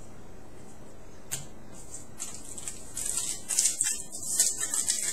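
Crinkling and rustling of a foil trading-card pack wrapper and the cards inside being handled, with a single click about a second in. The crackling grows busier from about two seconds in.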